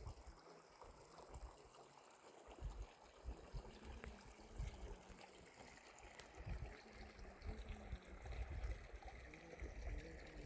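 A small stream trickling and flowing steadily, with uneven low rumbles coming and going.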